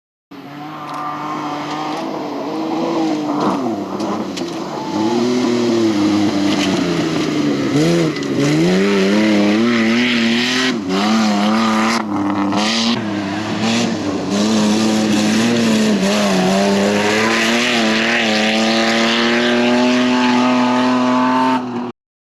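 Off-road race car engine revving hard, its pitch rising and falling with throttle lifts and gear changes, then climbing in one long pull over the last several seconds before cutting off suddenly.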